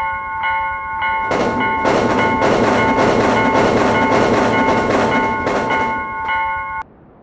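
Railroad crossing bell ringing in a steady repeated ding-ding, under twice a second. About a second in, a passing train's rushing wheel noise with a regular clatter joins it and drowns the bell. Both cut off abruptly near the end.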